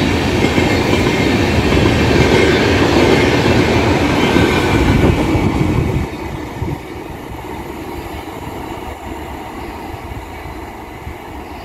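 An express train of LHB passenger coaches passing close at speed: a loud rumble with wheels clattering on the rails. About six seconds in, it drops suddenly to a quieter, steady rumble as the end of the train runs away down the line.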